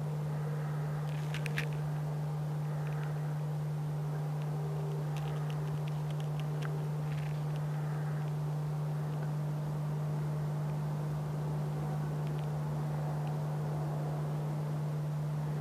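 A steady low hum at one even pitch throughout, with a few faint light clicks and rustles in the first half.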